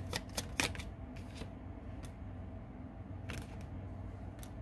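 Tarot cards being shuffled by hand: a quick run of card slaps that stops about half a second in, then a few separate soft card clicks as a card is drawn and laid down.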